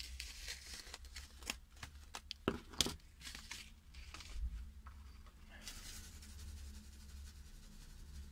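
Paper seed packet being handled and opened: a string of short sharp clicks and crinkles through the first three seconds, then a brief paper rustle about six seconds in.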